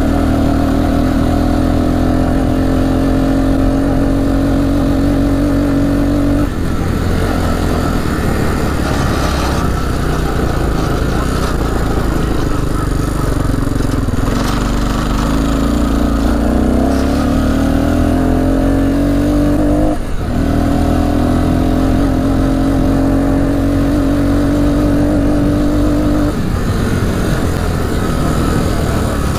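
1998 Arctic Cat 300 ATV's single-cylinder four-stroke engine pulling under throttle while riding, its pitch climbing slowly and then falling as the throttle is eased off about six seconds in, again at about twenty seconds and once more near the end. The engine is running with the choke on.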